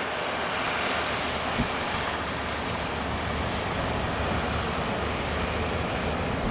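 Steady rush of surf and strong wind at a river mouth on the sea, an even roar without breaks.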